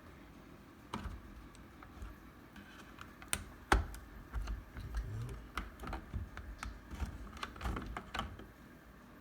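Irregular plastic clicks and knocks from a smoke detector's housing and battery being handled and pried at by hand. The loudest knock comes about four seconds in, and a quick cluster of clicks comes near the end.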